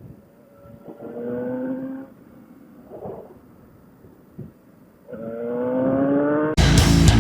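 Suzuki GSX-S750Z's inline-four engine revving twice, the pitch rising each time and the second rev longer and higher. Loud heavy-metal guitar music cuts in suddenly near the end.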